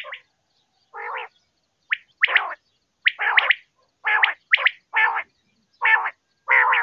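Quail calling over and over: about eight short harsh calls, one every half second to a second, each a sharp high note joined to a raspy, crackling part.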